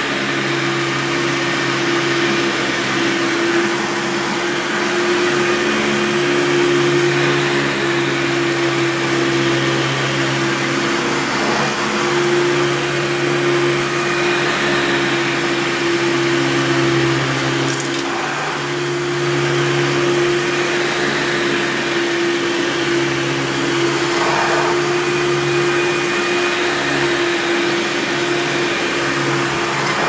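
Hoover Power Drive self-propelled upright vacuum cleaner running steadily as it is pushed back and forth over carpet, with a rubbing that the owner puts down to broken tabs on a worn base plate. A single click about eighteen seconds in.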